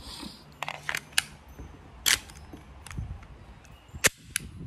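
Glock 17 airsoft pistol being handled and worked, about six sharp plastic-and-metal clicks and clacks, the loudest two near the middle and near the end. The pistol is unloaded and being checked after a new trigger and trigger bar were fitted.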